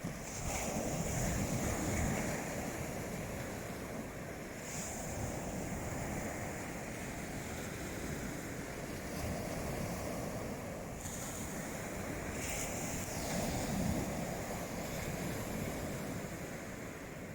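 Sea waves washing onto the shore, surging a little louder now and then, with wind buffeting the microphone.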